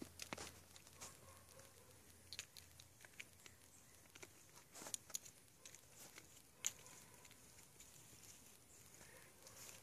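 Faint, scattered crunches and clicks of a young deer chewing acorns and nosing through dry fallen leaves, with the sharpest click about two-thirds of the way in.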